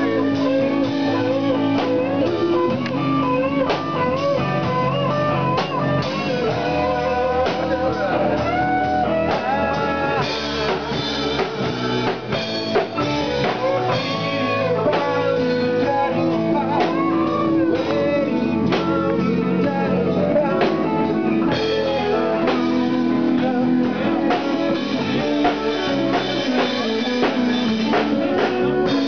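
Live rock band playing: an electric guitar lead with bent, wavering notes over bass and drum kit.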